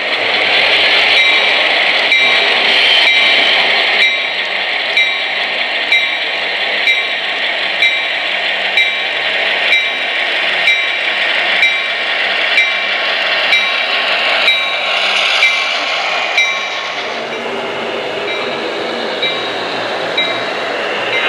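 HO-scale EMD F7A diesel locomotive model running by with its onboard sound decoder playing diesel engine sound through a small speaker, a steady rushing sound with sharp clicks about once a second. It grows a little quieter after about seventeen seconds as the locomotive moves away.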